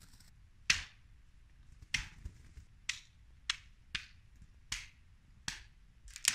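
Melting snow dripping from the branches above a campfire onto a tent, as a string of sharp, irregular taps about one every 0.7 seconds.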